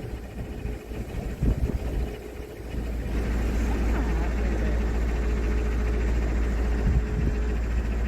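Narrowboat's diesel engine running steadily under way, a low continuous rumble that dips briefly about two seconds in.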